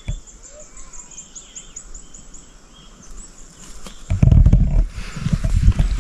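Insects chirping in a fast, even rhythm. About four seconds in, a loud low rumble with crackles on the microphone breaks in and covers them.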